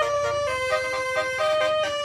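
Background music: a held, reedy lead melody stepping between notes over a steady rhythmic accompaniment.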